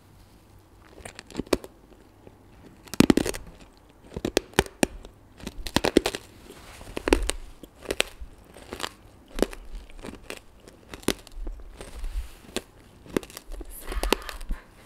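Close-miked mouth sounds of someone eating a hard-candy lollipop: irregular wet smacks and clicks, with sharp crunches as the candy is bitten with the back teeth. The loudest crunches come about three seconds in and again around six to seven seconds.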